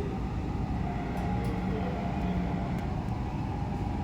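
A steady low rumble with a few faint ticks, like a moving vehicle or train heard from inside.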